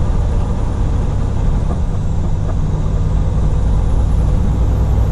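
Semi-truck's diesel engine and road noise heard from inside the cab while cruising, a steady low drone.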